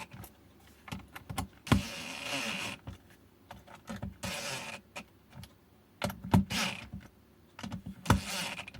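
Small cordless electric screwdriver whirring in about four short bursts, driving in the battery case screws a little at a time, with small clicks and knocks of handling between the bursts.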